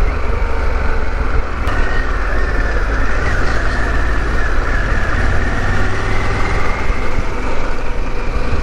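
Harley-Davidson Pan America's 1250 V-twin engine running steadily while the motorcycle is ridden, over a constant low rumble.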